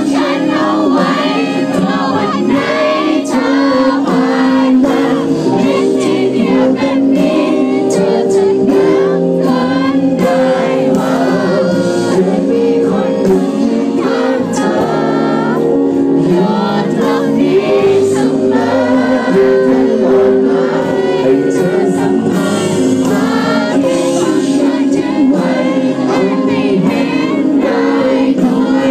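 Live pop-rock band with a male singer performing a song through a concert PA, recorded from within the audience.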